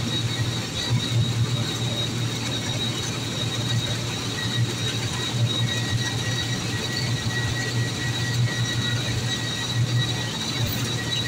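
Inside a moving bus: steady engine drone and road noise while it drives along, with a thin, steady high-pitched whine running over it.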